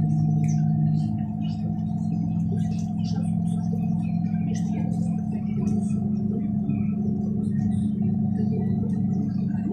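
A NefAZ 5299 city bus's Weichai WP7NG260E51 compressed-natural-gas engine idling, heard inside the passenger cabin as a steady low hum with a fainter higher tone above it. About a second in, the lowest note fades and the hum settles a little higher, with faint scattered ticks over it.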